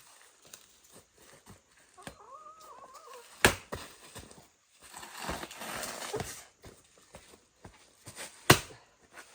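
Two sharp knocks, the first about three and a half seconds in and the second near the end, with a stretch of rustling between them and a faint wavering call a couple of seconds in.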